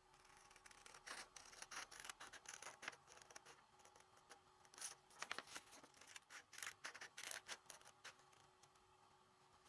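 Scissors snipping through coloured paper, cutting along its folds toward the centre: a faint run of short, sharp cuts with some paper rustling.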